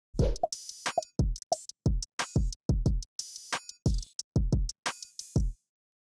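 Electronic drum-machine beat: deep kick drums and sharp snare and hi-hat hits in a quick rhythm, stopping suddenly about half a second before the end.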